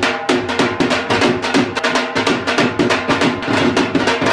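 Fast dhol drumming for dancing, with a melody running under the quick, evenly repeated strokes.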